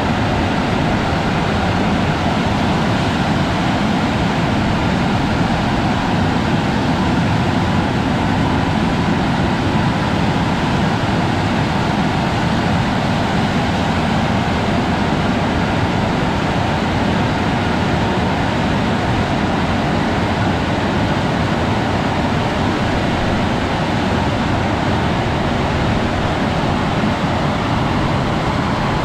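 Aquarama Stargate S10 rollover car wash machine running: a loud, steady rushing noise that does not change.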